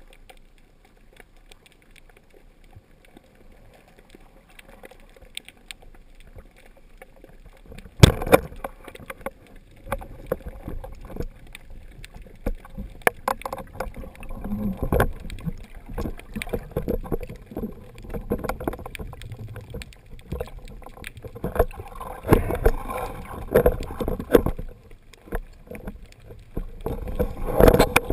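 Underwater sound of a spearfishing dive: a single sharp crack about eight seconds in as the speargun fires, then repeated knocks and clicks of the shaft, line and gun being handled, with water noise growing louder near the end.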